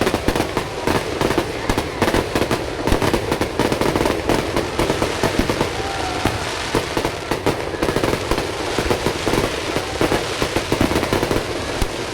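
Aerial fireworks display going off in a dense, unbroken barrage of bangs and crackles, many shots a second.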